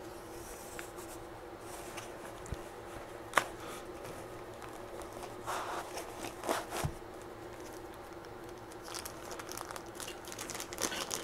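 Plastic zip bags of small parts crinkling as they are handled and lifted out of a cardboard box, with a few light clicks and taps, over a faint steady hum.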